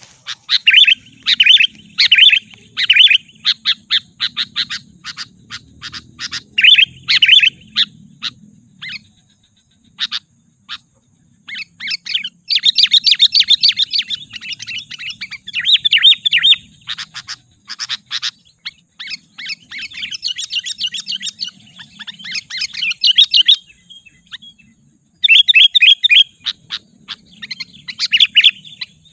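Sooty-headed bulbul calling: quick runs of short, high chattering notes, repeated again and again with brief pauses. This is the agitated calling used as a lure to excite wild bulbuls.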